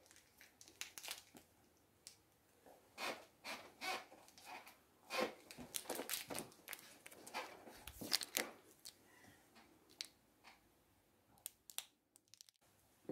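Laffy Taffy candy wrapper crinkling in the hands as it is handled and twisted: faint, short crackles scattered irregularly, thinning out in the last few seconds.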